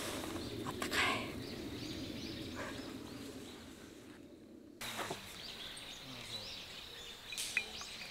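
Outdoor forest ambience: a steady background hiss with a sharp click about a second in, then, after a brief drop-out, small birds chirping.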